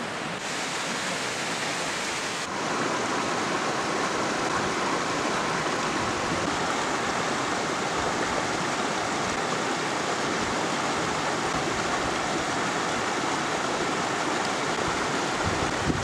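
Steady rushing of running water, like a stream flowing nearby, a little louder after a cut about two and a half seconds in.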